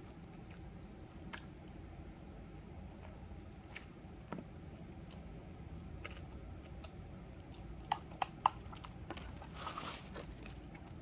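A person chewing a mouthful of kimbap dipped in tteokbokki sauce, with faint wet mouth clicks. A few sharper clicks come about eight seconds in.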